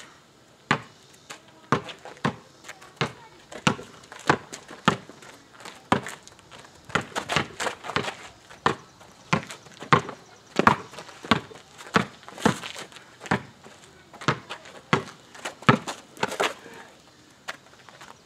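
Basketball dribbled on an asphalt driveway: a steady run of sharp bounces, a little under two a second.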